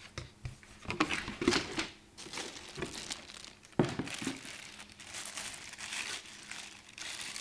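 Packaging crinkling and rustling in irregular bursts as the power supply's box contents are handled, with a sharper knock about four seconds in.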